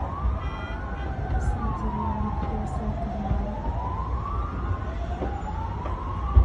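Emergency vehicle sirens wailing, the pitch slowly rising and falling about every three seconds, over a steady low rumble.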